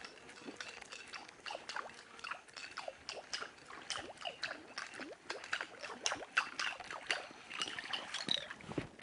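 A hooked trairão (wolf fish) thrashing at the water's surface: a run of irregular splashes and sloshes with small water plinks, going on without a break.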